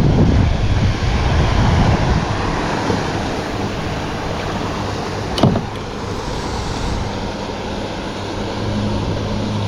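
Steady rushing noise of a small waterfall mixed with wind on the microphone, with one sharp click about five and a half seconds in.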